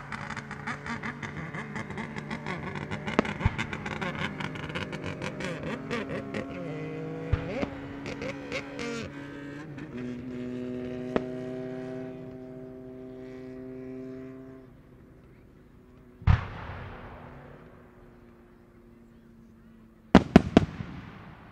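Aerial fireworks: dense crackling for the first nine seconds or so, then a single shell bursting with a long fading echo about sixteen seconds in, and a quick cluster of loud bangs near the end.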